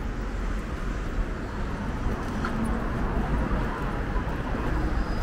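Road traffic noise: a steady low rumble of passing cars.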